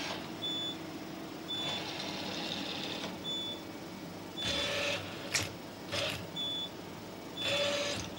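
Robot arm workcell in operation: six short high electronic beeps at irregular intervals, several bursts of air hiss, and a steady machine hum underneath.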